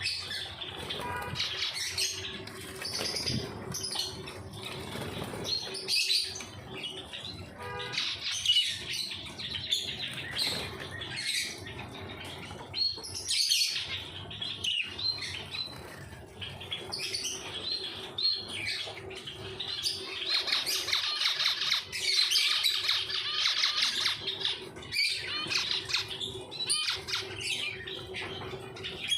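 Pet birds chirping and calling in quick, overlapping bursts, busiest about two-thirds of the way through, with a faint steady hum underneath.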